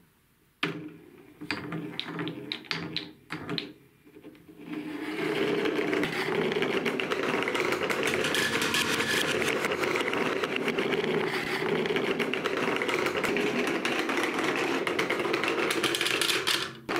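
Balls rolling down a marble run: a few separate knocks and short rattles as they start off, then from about five seconds in a continuous, dense rattling rumble as many balls roll over the wavy slope track.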